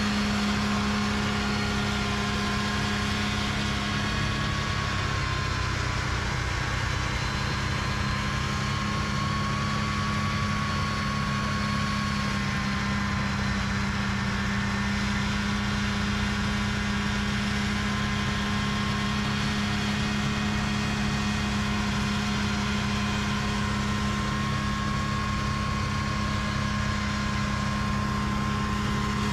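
A home-built PTO snowblower on the front of a backhoe, driven by an auxiliary snowmobile engine, running steadily as it blows snow, mixed with the backhoe's own diesel engine. The engine note holds an even pitch.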